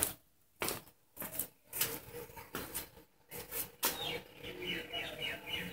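Scattered clicks, steps and rustles as a person moves about and pulls on work gloves, with a quick run of high chirps in the last couple of seconds.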